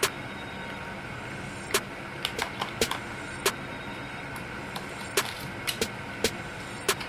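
Sharp plastic clicks from a toy gel blaster pistol, about a dozen at uneven intervals, some in quick pairs, over a steady hum.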